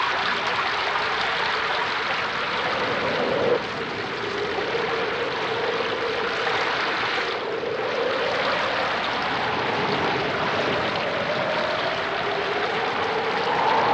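Howling hurricane-force wind: a steady rushing roar with a howl that wavers in pitch and rises near the end.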